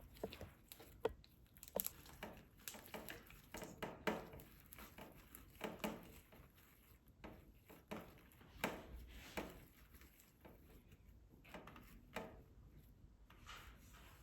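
Confetti slime being squished and poked by hand: faint, irregular small sticky clicks and squelches.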